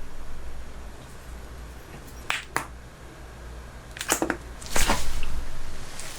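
Eating and handling sounds from a bite of raw chicken breast sashimi: two light clicks a couple of seconds in, then short, noisy bursts of mouth sounds near the end.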